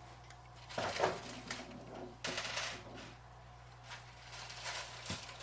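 Handling of small replacement refrigerator parts: a few short rustles and light clinks over a steady low hum.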